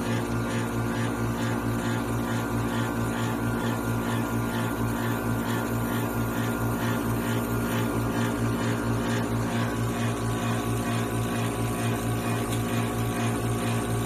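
Lab slot die film coater running mid-coat: a steady machine hum from its drive motors and built-in vacuum pump, with a low pulsing about two or three times a second.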